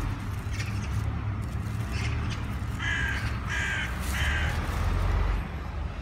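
A crow cawing three times in quick succession, over a steady low rumble.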